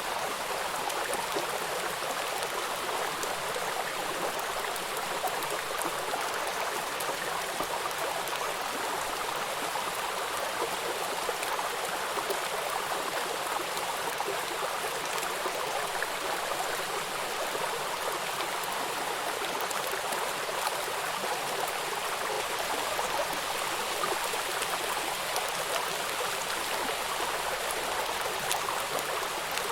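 Water running in a stream, a steady even rush with no change in level.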